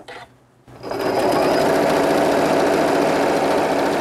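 Electric sewing machine starting up about a second in and then running steadily at speed, stitching a straight basting seam through layers of canvas.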